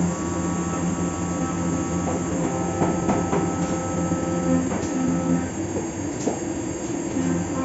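Fagima Jazz M 5-axis CNC milling machine cutting a part: a steady multi-tone whine from the spindle and axis drives over cutting noise, with a few short squealing sweeps around the middle. The low whine drops out about five and a half seconds in and comes back near the end.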